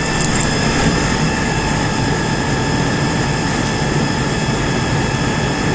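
Steady mechanical drone of a large engine, with several high whining tones held level throughout.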